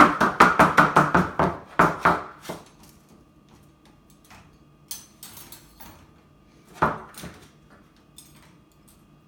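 Dishes and cutlery clattering as a dishwasher is unloaded: a quick run of clinks and knocks in the first two and a half seconds, then a few scattered clinks and one louder knock about seven seconds in.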